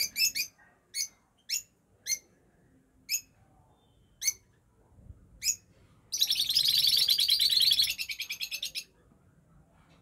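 Caged rosy-faced lovebirds calling: single sharp, high chirps about once a second, then a loud, rapid chattering run of nearly three seconds starting just past the middle.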